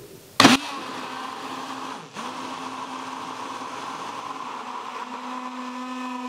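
Hand-held immersion blender running in a tall plastic cup, emulsifying egg and seed oil into mayonnaise. It starts with a short loud burst, runs steadily with a brief break about two seconds in, and from about five seconds its steady hum becomes clearer.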